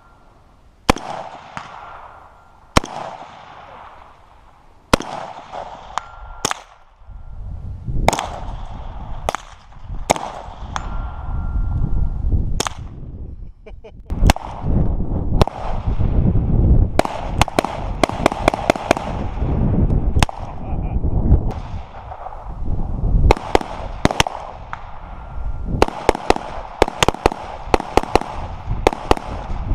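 Rifle shots at steel targets: single shots every one to two seconds, then fast strings of several shots a second in the second half and near the end. After some shots a faint ringing tone of hit steel hangs on briefly, and low rumbling noise runs through the middle.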